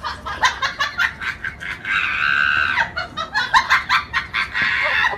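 Fowl clucking: a rapid run of short calls, with one longer held call about two seconds in.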